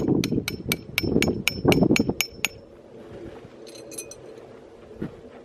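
A metal tent stake being hammered into hard ground: about ten quick ringing metal strikes, roughly four a second, stopping about two and a half seconds in. A few faint metallic clinks follow near the four-second mark.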